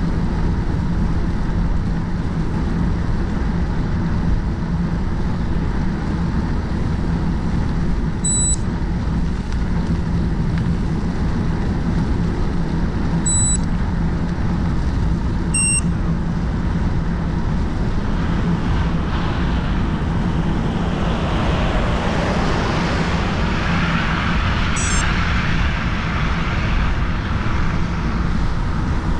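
Steady rush of wind on the camera microphone and tyre noise from a gravel bicycle being ridden, under a low steady hum. Short high beeps sound three times in the first half. From about two-thirds of the way through, a vehicle's noise swells and fades again.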